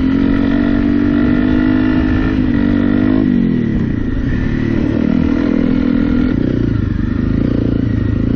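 Honda CRF250 Rally's single-cylinder four-stroke engine held at high revs for about three seconds, then the revs drop and it runs unevenly lower down. The throttle is working a rear wheel that spins in soft sand: the bike is bogged.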